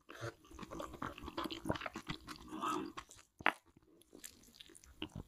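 Close-miked mouth sounds of someone chewing a mouthful of spicy creamy noodles: dense wet smacking and clicking, quieter in the second half, with one sharp click about three and a half seconds in.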